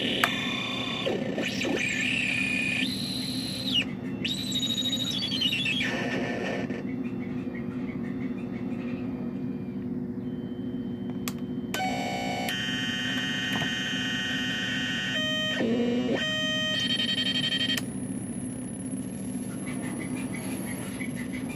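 Homemade synthesizer with lit push buttons and knobs, played by hand: electronic tones that step and glide in pitch and switch abruptly as buttons are pressed, over a steady low buzz. About halfway through a denser cluster of tones sounds for several seconds, and near the end a single high whine holds.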